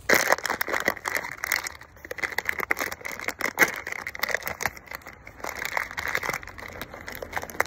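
Plastic dog-food bag crinkled and squeezed in the hands close to the microphone, a dense, irregular run of crackles.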